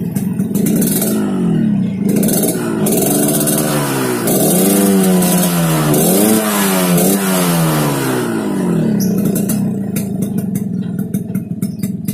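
Yamaha RX-King single-cylinder two-stroke engine heard through its stock exhaust, which is not debaffled but has a modified silencer insert. The throttle is blipped several times, with the revs rising and falling, then it settles back to idle with a crackling, popping patter near the end.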